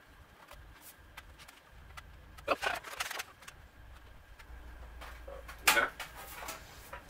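Small clicks, taps and scrapes of hand tools and parts being handled on a MacBook Air A1466 laptop as it is opened to disconnect its battery, with a louder clatter about two and a half seconds in and a sharp one near six seconds.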